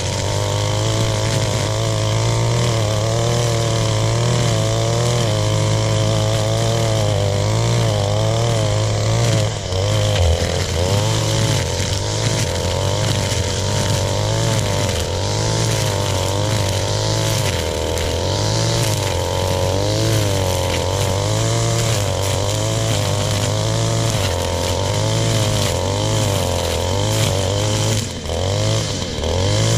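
Gas string trimmer (weed eater) engine running at cutting speed as it clears grass and brush, its pitch rising and falling with the throttle. The revs drop briefly about ten seconds in and again near the end.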